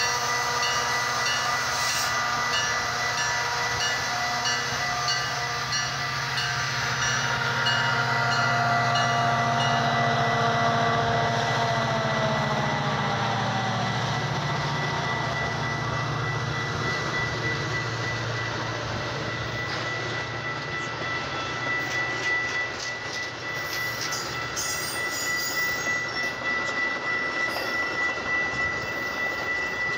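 A Metra diesel-hauled commuter train passing a grade crossing. The locomotive's low engine rumble and whine drop in pitch and fade about halfway through, while the crossing bell rings in quick repeated strokes. The bilevel coaches then roll by with regular clicking of wheels over rail joints.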